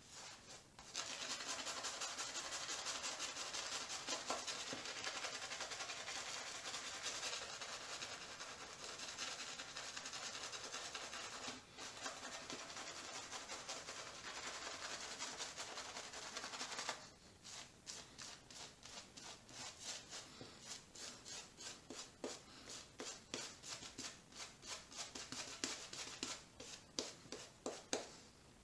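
Badger-hair shaving brush scrubbing lather onto a stubbled face: first a steady wet scrubbing of quick continuous strokes, then, a little past halfway, separate slower strokes, two or three a second.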